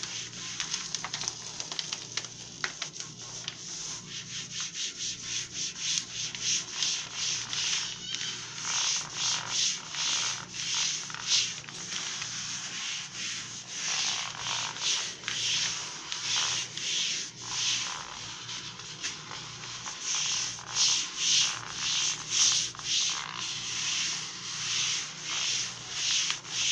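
A hand rubbing self-adhesive contact paper flat onto a glass tabletop. It makes a rapid, uneven series of rubbing strokes as the vinyl is pressed down and smoothed.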